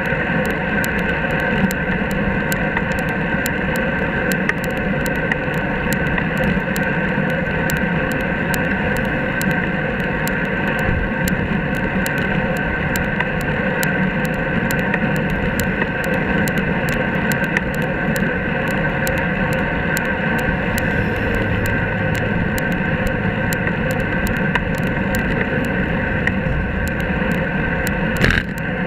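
Steady road and traffic noise from riding along a highway shoulder, with a constant rumble, a few steady tones and many small ticks throughout. Near the end the sound turns uneven as a truck and trailer pass close by.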